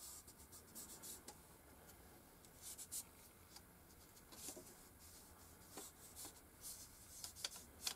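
Faint rubbing of a fingertip over thin aluminium pie-tray foil as it is pressed into an impression, with scattered soft crinkles.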